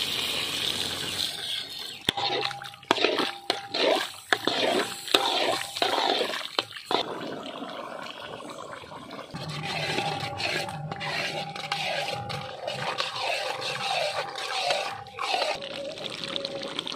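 Liquid poured into a large wok of frying cow-head meat, sizzling and bubbling, with a run of sharp scrapes and knocks in the first half as it is stirred. A wavering mid-pitched tone sounds behind it for several seconds in the second half.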